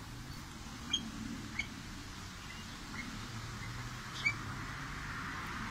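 A few short, high bird chirps, four in all spread over several seconds, the last the loudest, over a steady low hum.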